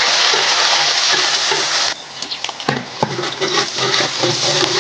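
Ingredients sizzling loudly in hot oil in a wok. The sizzle drops off sharply about two seconds in, and quieter frying with scattered clicks carries on after that.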